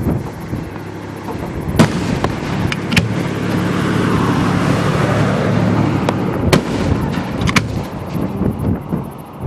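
Fireworks display: sharp bangs of bursting shells, four of them, the first the loudest, over a rushing noise that swells and fades in the middle.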